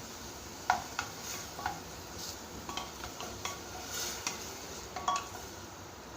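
Vegetables being stirred with a spoon in a pressure cooker pot, the spoon clicking against the pot about eight times at uneven intervals, over a faint steady sizzle.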